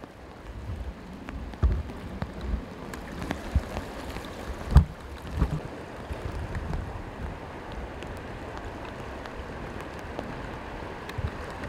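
Steady rushing wash of the flooded Danube flowing fast, with several low bumps and knocks on the microphone in the first half; the loudest comes about five seconds in.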